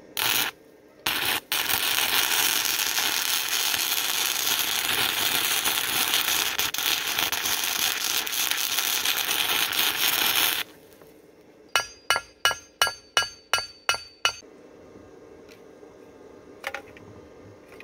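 Stick (arc) welding a steel shaft onto a lawnmower belt pulley: two short arc strikes, then the arc sizzling steadily for about nine seconds. It then gives way to eight quick ringing metal-on-metal taps, and one faint tap near the end.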